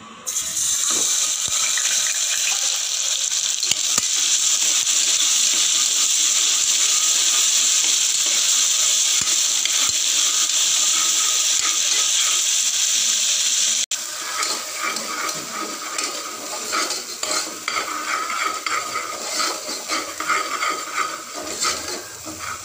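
Ginger-garlic paste sizzling loudly in hot sesame oil in a pressure cooker, starting as the paste hits the oil. About fourteen seconds in the sizzle drops suddenly to a quieter crackle, with a metal spoon scraping and clicking against the pot as it is stirred.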